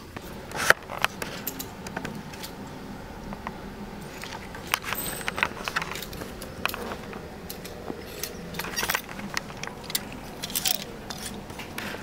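Clicking and jangling of clothes hangers knocking and sliding along metal clothing racks, with the rattle of a wire shopping cart, in irregular sharp clicks.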